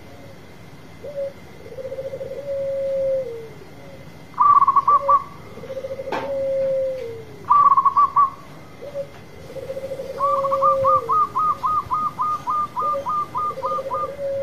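Zebra dove (perkutut) singing its cooing song, repeated about every three seconds: short bubbling notes followed by a long low coo that drops away at its end. Near the end comes a quick run of higher staccato notes. There is a single sharp click about six seconds in.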